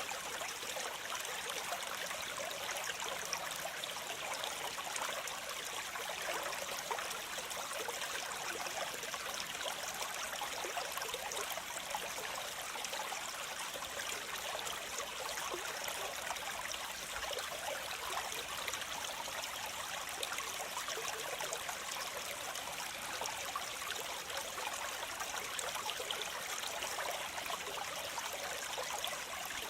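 A waterfall's cascading water making a steady, even rush, with little deep rumble.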